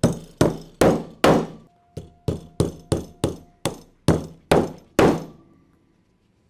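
Hammer driving rivets through Flexco R2 rivet hinged fastener plates into a conveyor belt held in the R2T applicator tool: a quick series of about a dozen sharp metal strikes, two to three a second, with a brief pause after the first four. The strikes stop a little after five seconds in.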